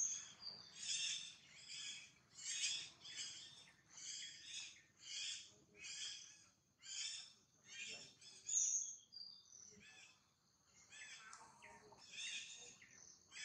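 Short high-pitched animal calls repeated about once a second, with a brief pause about ten seconds in.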